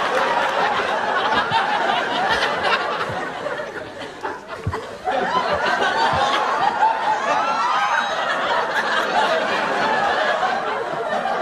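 Studio audience laughing, many voices together. The laughter fades about four seconds in and swells back up a second later.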